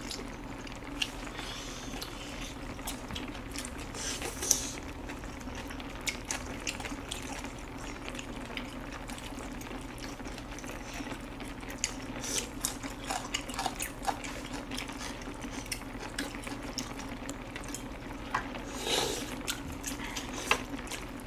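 Close-miked eating sounds: wet chewing and sucking on boiled samgyetang chicken meat, with small chopstick and bowl clicks scattered throughout. Two longer wet sounds come about four seconds in and near the end, over a steady low hum.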